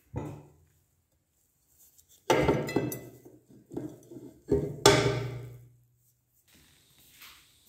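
Metal knocks and clanks of a cast-metal meat grinder being taken apart by hand, its worm screw pulled out of the housing. There are a few sharp knocks with a short ring, the loudest about five seconds in, then a faint rustle near the end.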